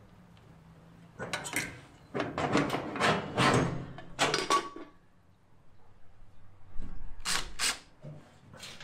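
Clatter and knocks of metal parts being handled and fitted to a steel smoker cabinet: a cluster of bangs and scrapes, then a pause, then two or three more knocks near the end.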